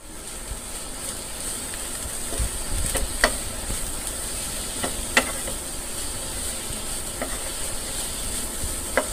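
Chopped cabbage, onion, carrot and capsicum sizzling steadily in a frying pan as a spatula stirs them. A few sharp knocks of the spatula against the pan come through the hiss.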